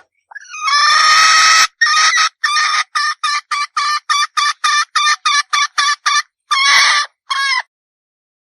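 Red junglefowl hen calling: one long note, then a quick run of about fifteen short clucks at roughly four a second, ending with a longer note and a short one.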